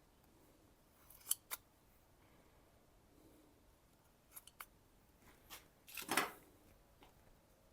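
Handling of automotive masking tape on a knife blade: a few short sharp snips and clicks, then a louder brief rasp about six seconds in.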